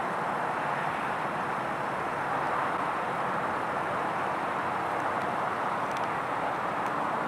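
Steady roar of distant road traffic, even and unbroken.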